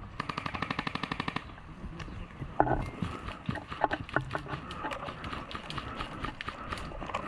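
Airsoft gun firing a full-auto burst of rapid, even clicks for just over a second. Scattered single clicks and knocks follow.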